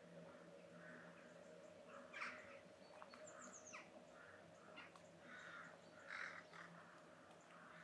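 Crows cawing faintly, a short call every second or so, with a small bird's high thin chirps now and then.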